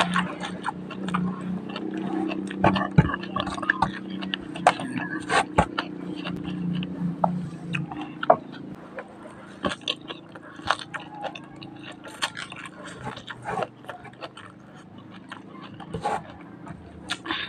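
Close-up eating sounds: chewing with irregular crunches, wet mouth clicks and snaps, with no talking.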